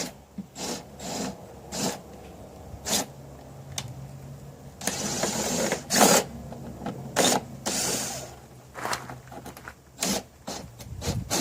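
Parts and screws being handled on a speaker cabinet: scattered clicks and knocks, with a rushing rustle about five seconds in and a shorter one near eight seconds.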